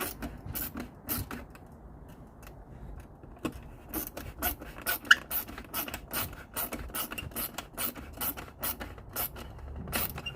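A hand ratchet clicking as headlight mounting screws are tightened. It clicks about twice a second at first, pauses briefly, then clicks faster, about three to four times a second, from roughly three seconds in.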